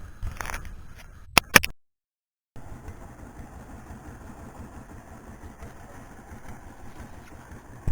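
A small boat's engine running steadily with a low rumble. Two sharp clicks come about a second and a half in, just before a short dropout to silence.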